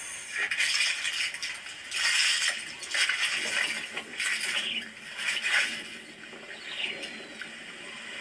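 Light water splashing with small clinks, in short irregular bursts.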